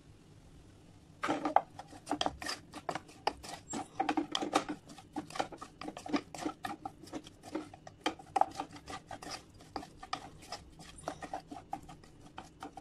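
Wooden spatula scraping and knocking against a nonstick saucepan as prawns are stirred and tossed with masala: a quick, uneven run of scrapes and clicks starting about a second in.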